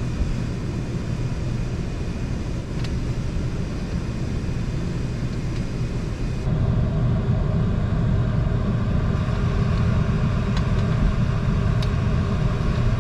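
Minivan idling with its cabin heater blowing, heard from inside the van as a steady low rumble and rush of air. About six and a half seconds in it steps up louder, with a steady multi-tone hum joining it, and there are a few faint clicks.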